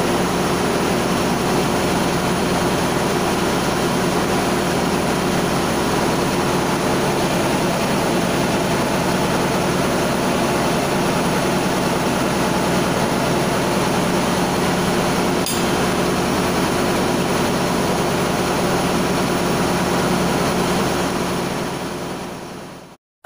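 Loud, steady drone of running machinery in a ship's engine room, with a few constant hums under a wide hiss. It fades out near the end.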